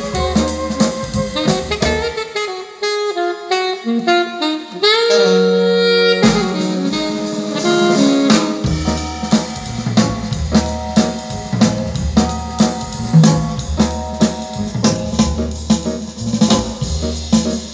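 Instrumental jazz with saxophone, drum kit and bass, played back through a pair of Bose 101 MMG speakers in a listening test. About two seconds in, the bass and drums drop away for a few seconds under a held horn note, then the full band comes back in.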